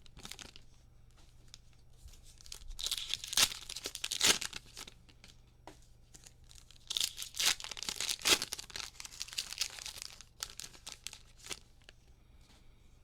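Trading card cello packs being torn open and the wrappers crinkled, in two crackly bursts about four seconds apart with light crinkles between and after.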